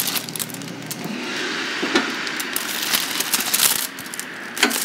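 Preheated Ninja Foodi Grill's fan running with a steady rushing noise once the lid is lifted about a second in, with a couple of sharp clicks as the lid and foil-wrapped package are handled.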